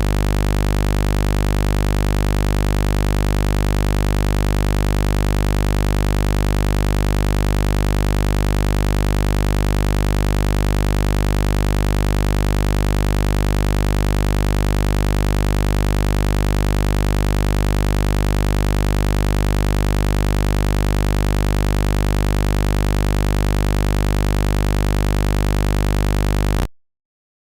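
Heavy buzz sound effect: a loud, steady low buzz with many evenly spaced overtones, unchanging throughout, that cuts off abruptly near the end.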